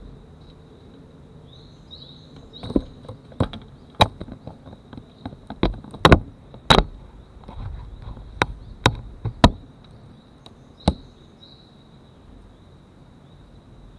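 A series of sharp taps and knocks, about a dozen over several seconds, the loudest near the middle, as cats bump against an action camera right at its microphone. A faint steady high-pitched whine runs underneath.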